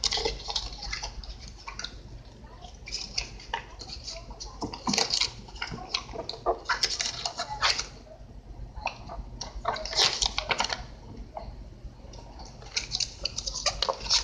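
Paper instruction leaflet being unfolded and handled, rustling and crinkling in irregular bursts.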